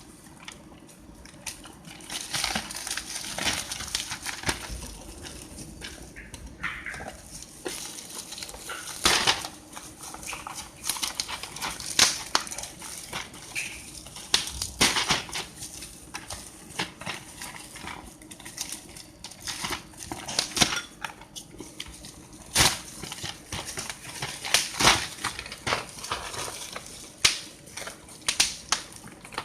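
Handling noise from unboxing a mini hand saw: irregular sharp clicks, knocks and taps of hard plastic and metal parts, with crinkling packaging between them.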